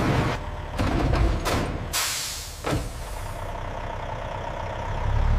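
Armoured truck: a few sharp metallic knocks, then a loud hiss of air brakes releasing about two seconds in, and the truck's engine idling with a low rumble that grows near the end.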